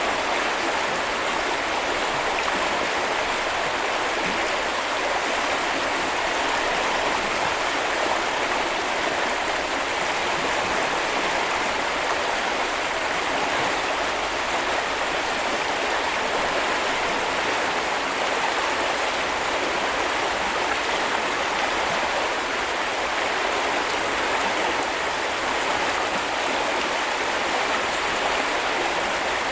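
A stream rushing and babbling steadily, an even unbroken water sound.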